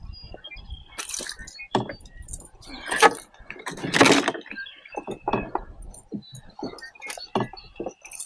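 Irregular clinking, rattling and knocking of fishing gear being handled, with louder rustling bursts about three and four seconds in.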